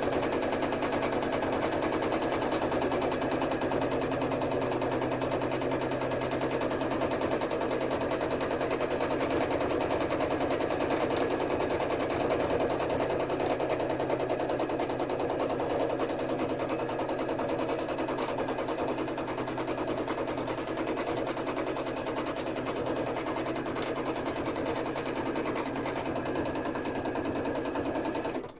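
Sewing machine running fast and continuously, stitching fabric pieces down onto a textile wall hanging. It stops abruptly at the very end.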